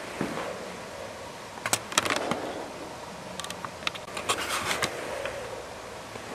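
Footsteps crunching and clicking over debris on the floor of a derelict building: a few sharp crackles about two seconds in, then a denser run of them near the middle. Under them is the soft breathing of a respirator.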